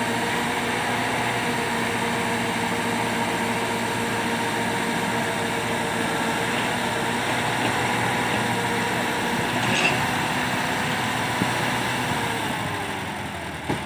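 Massey Ferguson 375 tractor's four-cylinder diesel engine running steadily while it powers a backhoe attachment digging and loading soil. The engine slows near the end, and there is a single knock about ten seconds in.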